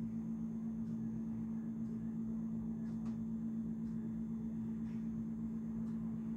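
Steady low electrical hum, with faint light taps about once a second as a spatula spreads cream in a glass baking dish.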